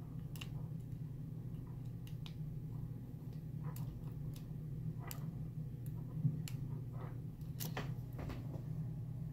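Lock pick and tension wrench working in the keyway of a Master Lock A22 lockout padlock: faint, irregular small clicks as the pins are picked, over a steady low hum.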